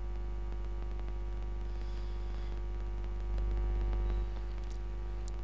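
Steady electrical mains hum picked up by the recording microphone, briefly louder about three and a half seconds in, with a couple of faint clicks near the end.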